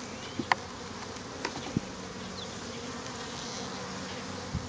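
Honeybees buzzing steadily as a mass in their shipping package, with a few faint clicks and taps scattered through.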